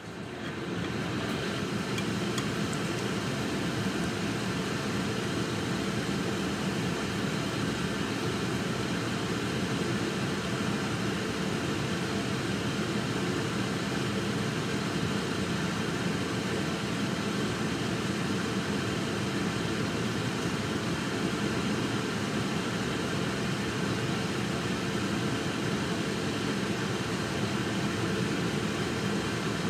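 A fan blowing air, coming on at the start and rising to a steady rushing noise within about a second.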